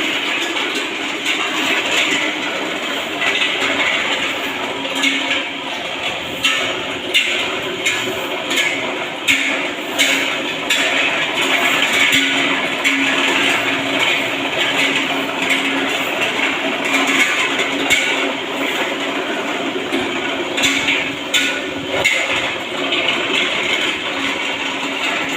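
Construction work noise: a steady din with irregular knocks, clinks and scrapes scattered throughout.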